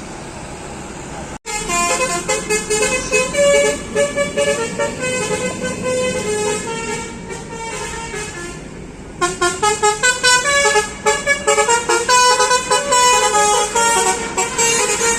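Bus 'telolet basuri' multi-tone air horns playing a tune in quick stepped notes. They start abruptly about a second and a half in, after a steady hum of traffic. The tune eases off around eight seconds in, and a second loud run of notes starts about nine seconds in.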